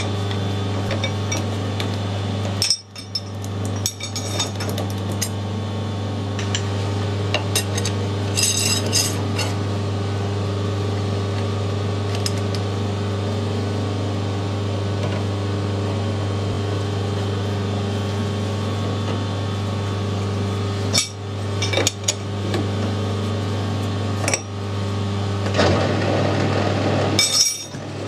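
Metal clinks and knocks as an ER40 collet and its chuck on a metal lathe are handled and tightened, over a steady low hum. Near the end the lathe spindle starts turning.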